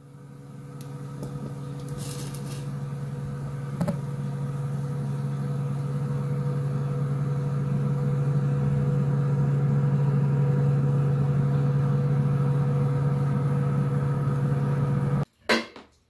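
A kitchen appliance's electric motor humming steadily, a low hum with a fainter higher tone above it, growing louder over the first several seconds and cutting off suddenly near the end.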